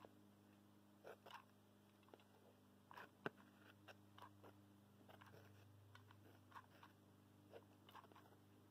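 Near silence broken by faint, scattered clicks and ticks from hot-gluing, as a hot glue gun lays beads of glue across a foam-board piece, with one sharper click about three seconds in. A low, steady hum sits underneath.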